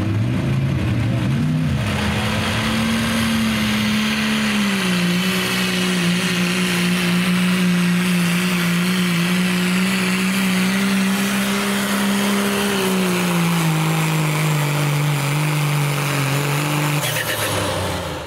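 Turbocharged diesel pickup engine running flat out while pulling a weight-transfer sled, one heavy steady drone. Its pitch drops a little about five seconds in, sinks again later as the pull slows, then fades out near the end.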